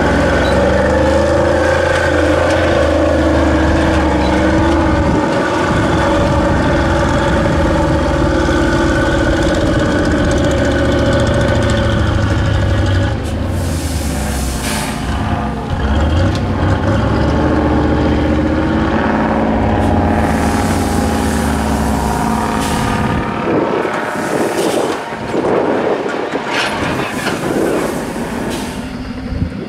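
ZIL 131 6x6 truck's engine running hard under load as it crawls and climbs over rough ground, its pitch rising and falling. Several bursts of hissing air come from the air brakes. The engine drops much quieter about three-quarters of the way in.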